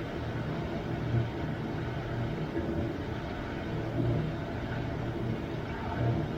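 Washtech UL Premium undercounter commercial dishwasher running its wash cycle: a steady pump hum with water spraying inside the cabinet, the low hum swelling and easing every second or two.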